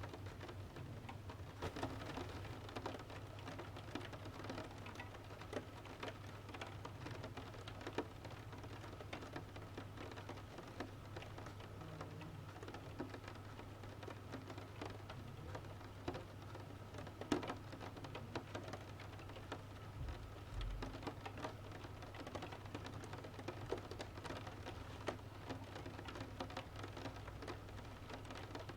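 Rain pattering steadily, mixed with the irregular snaps and pops of a wood fire crackling in a stove, over a steady low rumble.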